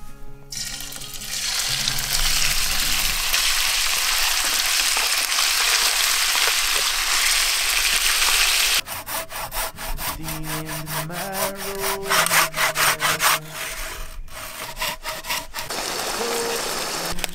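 Diced raw chicken dropped into hot olive oil in a frying pan, sizzling loudly and steadily. About nine seconds in, a wooden spatula starts scraping and stirring the pieces in quick strokes over a quieter sizzle.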